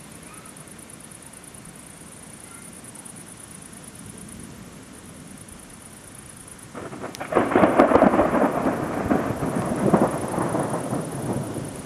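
Thunder from a nearby storm: a sudden sharp crack a little past halfway, then a loud crackling rumble that slowly dies away.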